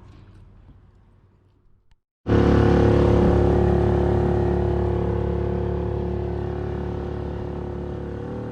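Boat's outboard motor running at a steady speed. It cuts in suddenly about two seconds in and slowly grows quieter.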